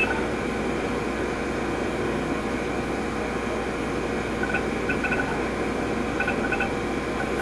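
Seagate ST-225 half-height 5.25-inch hard drive running in an IBM PC XT: a steady whir and hum. From about four and a half seconds in come several quick groups of short high chirps.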